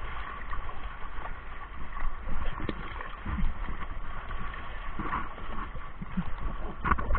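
River water splashing and sloshing against an overturned whitewater raft as it is flipped back upright, with irregular knocks and thuds from the raft and the camera mounted on it.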